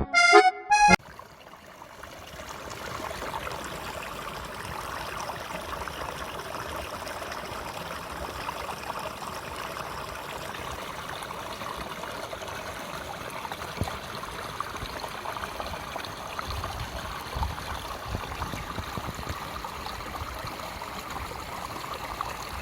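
Mountain stream flowing over rocks: a steady rushing and babbling of water that fades in about two seconds in and cuts off abruptly at the end.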